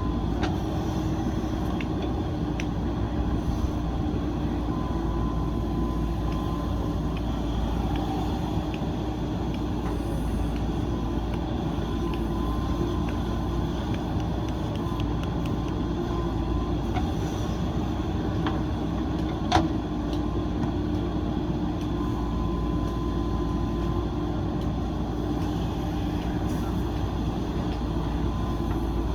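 JCB backhoe loader's diesel engine running steadily, with one sharp knock about two-thirds of the way through.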